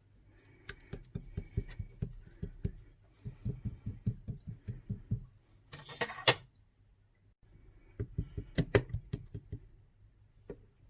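Typing on a keyboard: quick runs of key clicks with a dull thud under each stroke, broken by a short scraping or rustling sound about six seconds in and a brief pause just after.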